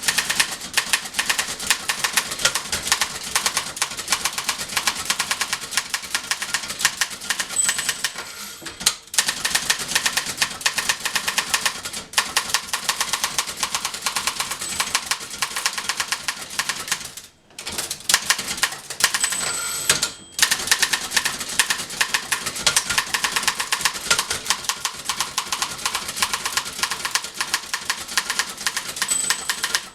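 1911 Continental Standard manual typewriter being typed on steadily: a rapid run of keystroke clacks, broken by a few short pauses.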